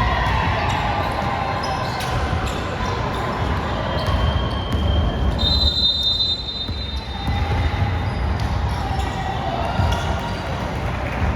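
Basketball game play: a basketball bouncing repeatedly on the court, with short high squeaks and voices calling out in a gym.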